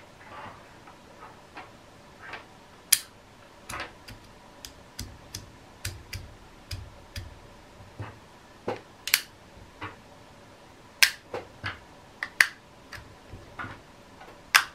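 Clear 3D-printed UV-resin rings clicking together as their embedded neodymium magnets snap them into place, one ring after another. The clicks are sharp and irregular, with a handful of louder snaps.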